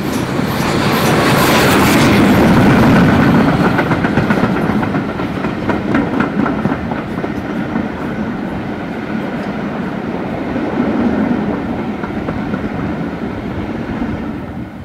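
SR Merchant Navy class No. 35006, a three-cylinder Bulleid Pacific steam locomotive, passes close by under steam, its exhaust beats loudest a couple of seconds in. Its coaches then roll past with wheels clicking over the rails, and the sound drops away near the end as the last coach clears.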